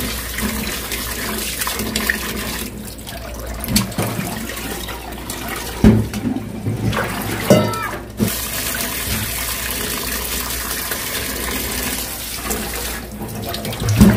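Cold tap water running into a stainless steel sink over a mesh strainer of blanched soybean sprouts as hands rinse them. A few short knocks come through, about four, six, seven and a half, and fourteen seconds in.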